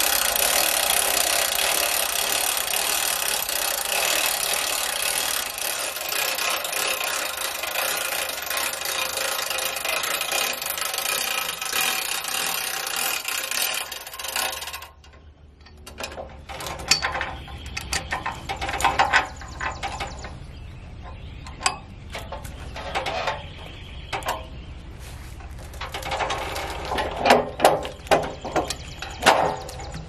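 For about the first half, a loud, steady rushing noise, which stops abruptly. After that come wooden knocks and metal clanks of a large log being rolled with cant hooks on a portable sawmill's steel bed, over a low steady hum. The knocks come thick and fast near the end.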